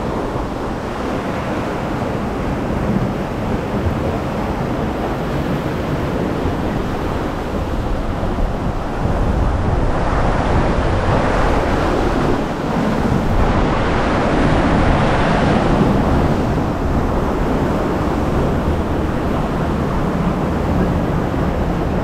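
Water rushing and churning around a river rapids ride's round raft, a steady wash that grows louder for several seconds in the middle.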